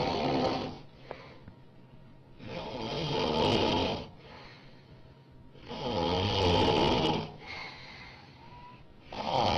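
A woman snoring loudly: long rasping snores of about a second and a half, one every three seconds or so, with quieter breathing between them.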